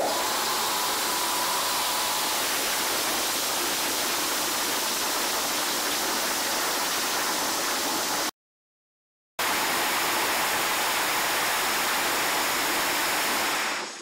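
Istobal M'Nex 25 rollover car wash gantry running, a loud steady rushing noise of air or water jets over the car. It breaks off into a second of silence just past the middle, then resumes until shortly before the end.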